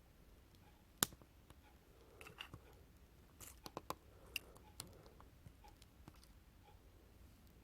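A sharp click about a second in, then a scattering of lighter clicks and taps in the middle, over faint room noise.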